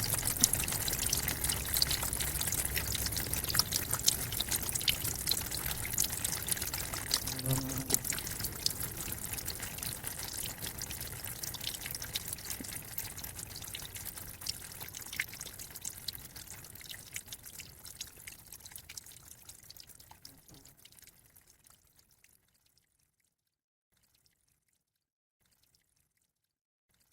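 Waterfall: a steady rush of falling and splashing water with fine spatter. It fades out over the second half and is gone, leaving near silence, a little over 20 seconds in.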